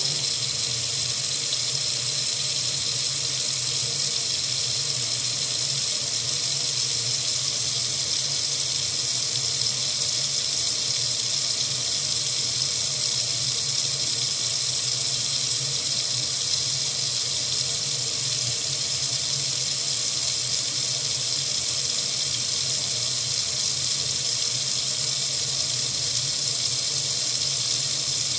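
Water running steadily from a faucet into a sink, an even, unchanging hiss.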